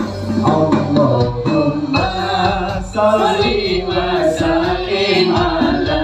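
Live singing into microphones over a band with gamelan percussion and keyboard, heard through the PA system.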